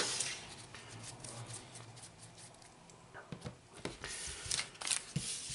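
Quiet handling of paper stickers and packets on a wooden desk: a soft rustle as a stack of stickers is put down, then a few light taps and clicks.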